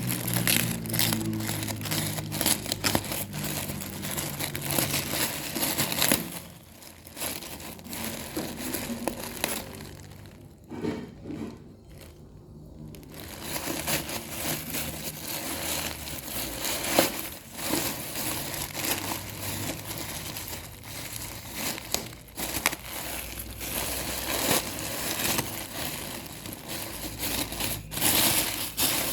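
Packaging being handled and opened: plastic and paper wrapping crinkling and crackling, with a quieter spell in the middle. A low steady hum runs under the first six seconds or so.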